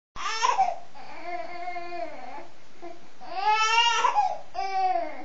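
A young baby fussing: about four high-pitched, whiny cries, the second one drawn out, with short breaths in between.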